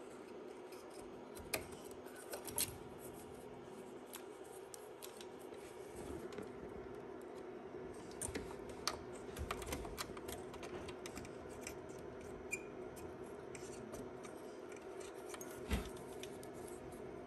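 Scattered light clicks and scrapes of hands handling wires and a lead inside an open AV receiver chassis, with a few sharper clicks near the start, in the middle and near the end, over a steady low hum.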